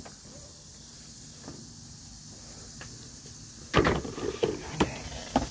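A burst of loud knocks and clatter starting about four seconds in, several sharp strikes over a second and a half, after quiet with a few light clicks.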